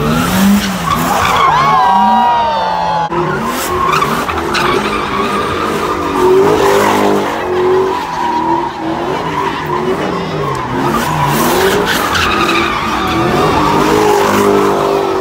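Car engine revving up and down while its tyres squeal and screech, as the car spins donuts on pavement.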